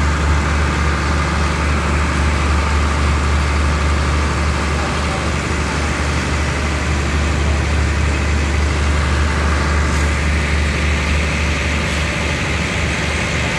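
Stationary diesel passenger train idling, a steady low engine hum.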